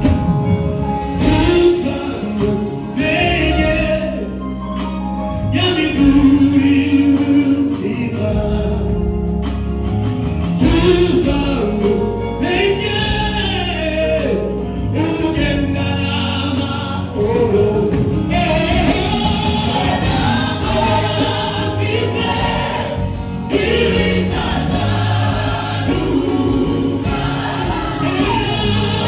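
Live gospel choir of men's and women's voices singing a worship song into microphones, backed by a band with steady low notes underneath.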